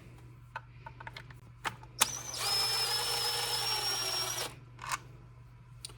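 Powered screwdriver motor running steadily for about two seconds with a high whine, backing out a small Torx screw. Scattered clicks and light rattles of handling the tool and parts come before and after it.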